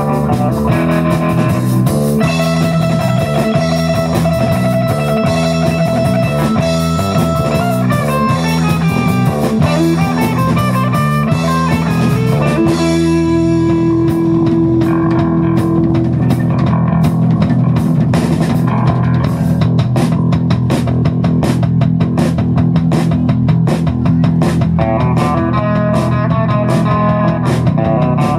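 Live instrumental surf rock band playing: electric guitar lead over bass guitar and drum kit. About halfway through, the sound thins out to a long held note and then a steady drumbeat under the guitars.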